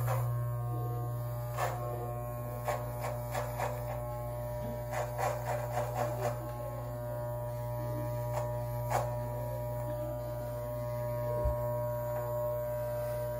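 Electric beard trimmer buzzing steadily, with short clicks coming in small bunches now and then.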